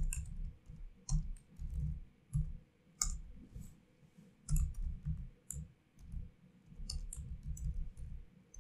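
Typing on a computer keyboard: irregular runs of keystrokes with short pauses, each key a sharp click over a dull thud.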